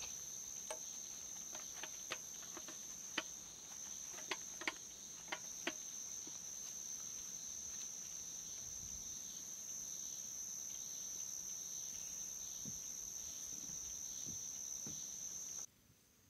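Steady high-pitched trilling of night insects such as crickets, with a run of sharp clicks and taps during the first six seconds. The trilling cuts off abruptly near the end.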